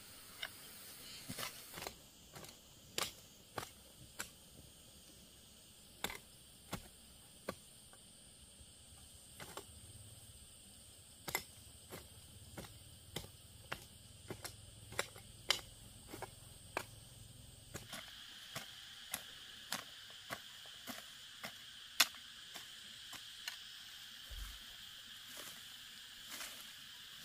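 Insects chirring steadily in the background, the pitch dropping about two-thirds of the way through, over many sharp, irregular clicks and snaps, roughly one or two a second.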